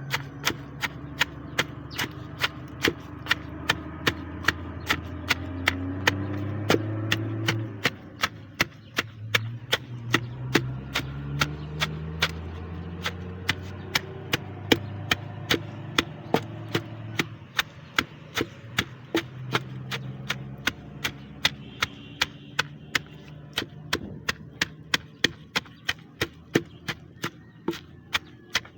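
Pestle pounding chopped neem and pawpaw leaves in a mortar, steady strikes about two a second, over a low background hum.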